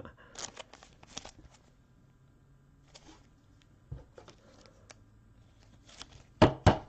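Trading cards being handled on a table, with soft rustling and light clicks, then two sharp taps close together near the end.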